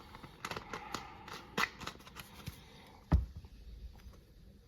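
Hands working on tow bar parts: scattered light clicks and rubbing, with one heavier thump about three seconds in.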